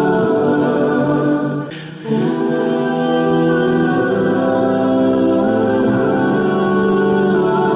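Background music of long held, choir-like voices, with a brief dip about two seconds in.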